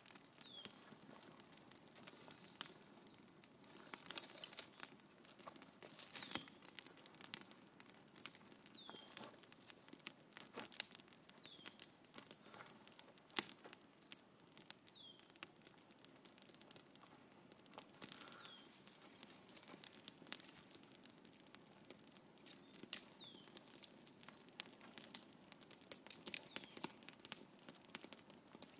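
Campfire crackling with frequent small, irregular pops. A short, high, falling chirp recurs every couple of seconds.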